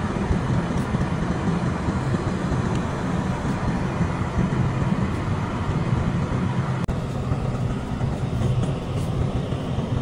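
Wind buffeting the phone's microphone in a snowstorm, a steady gusty rushing with a heavy low rumble.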